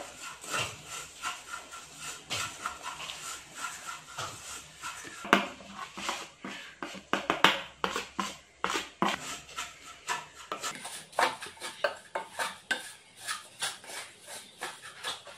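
A wooden spatula stirs and scrapes grated coconut around a non-stick pot as it roasts brown in a little oil. It makes a steady, irregular run of scrapes and taps, with a few louder knocks against the pot midway.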